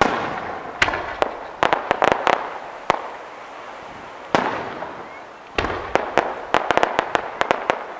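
Aerial firework shells bursting: three booms, each dying away slowly. The first and last are followed by rapid strings of sharp pops and crackles.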